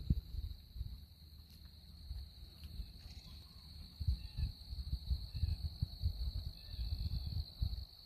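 A steady, high-pitched chorus of insects, with gusts of wind rumbling on the microphone over it, loudest at the very start and again in the second half.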